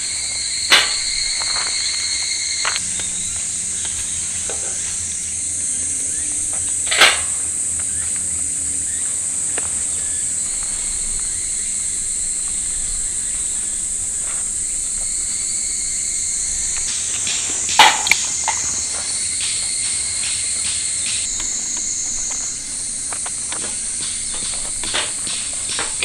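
Steady high-pitched chorus of insects chirping, with a few sharp knocks about a second in, about 7 seconds in and about 18 seconds in, and lighter clicks toward the end.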